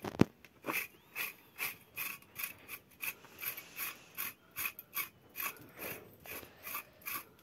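Curry comb scraping along a cow's coat in even, rhythmic strokes, a little over two a second, working dried mud and dung out of the hair. A single sharp knock sounds just after the start.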